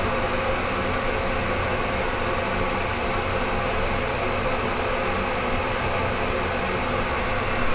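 Builder-grade bathroom ceiling exhaust fan running steadily: an even rush of air with a low motor hum, loud for a bath fan.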